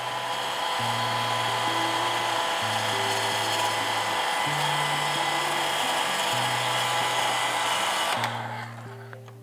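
Handheld hair dryer blowing a steady rushing hiss, drying the decoupage glue under a freshly applied paper napkin; it cuts off about eight seconds in. Soft background music with slow low notes plays throughout.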